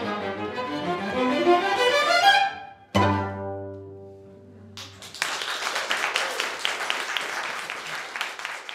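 String quartet playing the closing bars: a rush of bowed notes, then a sharp final chord about three seconds in that rings and fades. Applause breaks out about two seconds later.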